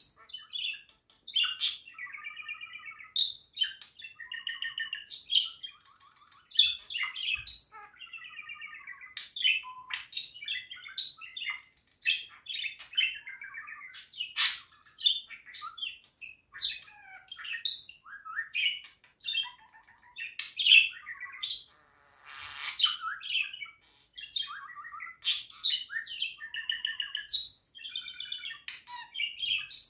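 Budgerigar warbling: an unbroken, chattering warble interspersed with many sharp, high chirps and clicks. About three-quarters of the way through there is a brief scratchy rasp.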